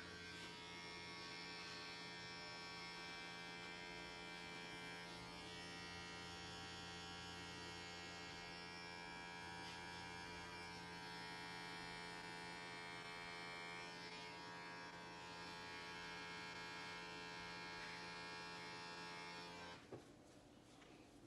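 Electric hair clippers running with a steady buzzing hum, cutting hair; the motor stops about a second before the end.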